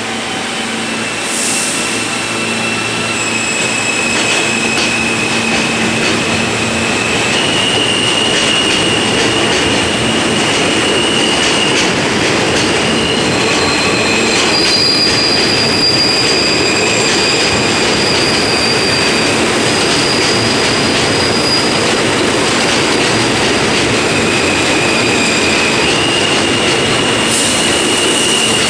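R160A subway train running past on steel rails, with a steady rumble of wheels and a high wheel squeal. The squeal is made of several shrill tones that hold and then jump in pitch. The sound builds over the first few seconds and then stays loud.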